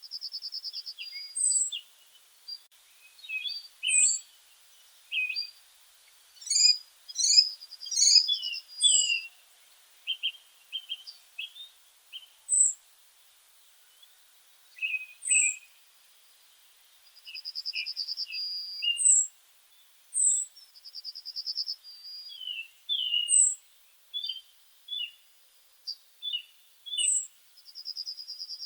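Several songbirds singing together. A thin, very high note repeats every couple of seconds, and a fast trill of about a second and a half comes a few times, among scattered short chirps.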